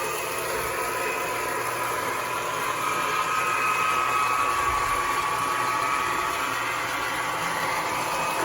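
Toy electric train running on its track: a steady motor whir with rail rumble and a whining tone that swells slightly about three seconds in.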